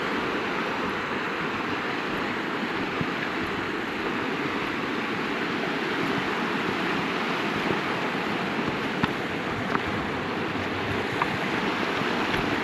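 Glacial meltwater river rushing: a steady, loud wash of water, with a few faint clicks in the last few seconds.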